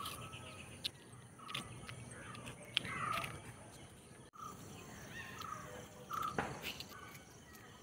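Birds and insects chirping, with short repeated calls and a few rising-and-falling whistles. Light clicks and crinkles of paper roll caps being peeled open by hand.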